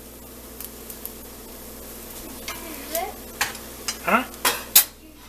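Metal spoon stirring scrambled eggs and cheese in a metal pot, scraping and clinking against the pot's sides and bottom over a faint sizzle of cooking eggs. The scrapes and knocks come thicker in the second half.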